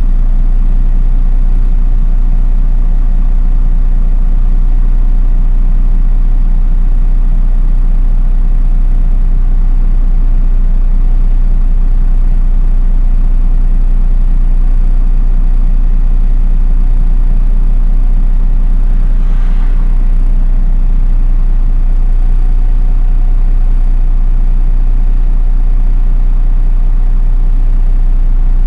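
Diesel engine of a MAN NÜ 313 low-entry city bus idling steadily, heard from inside the bus, with a deep constant rumble and an even pitch.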